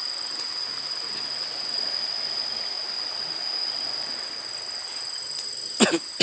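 Crickets trilling steadily at two high pitches over a faint hiss. Near the end comes one short, loud sound from a person's voice.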